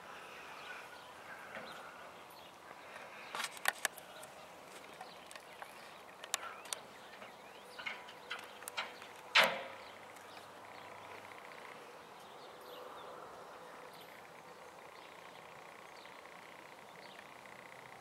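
Quiet outdoor background hiss, broken by a scatter of short sharp clicks and knocks between about three and ten seconds in, the loudest a single knock near the middle.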